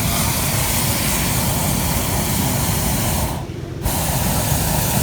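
Hot air balloon's propane burner firing with a steady, loud hiss over a low rumble. The hiss cuts out for about half a second a little over three seconds in, then the burner fires again.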